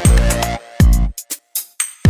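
Electronic dance music with deep, pitch-dropping kick drums. About a second in, the beat breaks down to a few short clicks and brief gaps.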